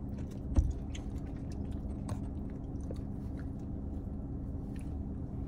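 Chewing and small mouth sounds of people eating, with faint scattered ticks over a steady low hum inside a car. One sharper click about half a second in.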